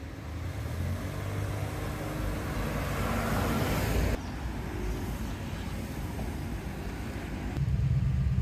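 Road traffic: a passing car's tyre and engine noise swells and then cuts off suddenly. Near the end a louder, low engine drone from a motor vehicle sets in.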